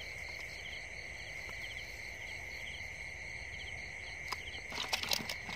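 Insects trilling: a steady high trill with faster pulsed chirps above it. A click about four seconds in and a few knocks and rustles near the end.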